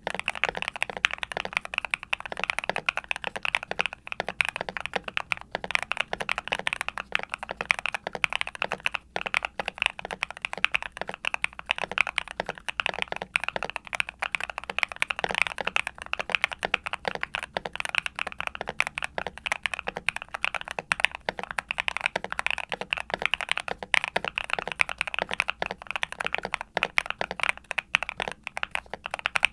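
Continuous fast typing on a Yunzii C68 mechanical keyboard with Gateron Smoothie linear switches, all-POM, on a steel plate in a foam-dampened case with PBT keycaps. The keystrokes come as dense, uneven clicks with a deep, clacky bottom-out.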